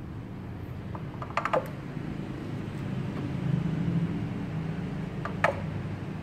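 A few sharp clicks, a quick cluster about a second and a half in and one more near the end, over a steady low hum.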